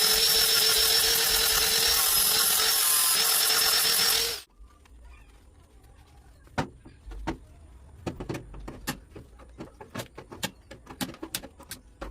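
A power tool running at steady speed with a high whine, cutting off abruptly after about four seconds. Scattered light clicks and taps follow.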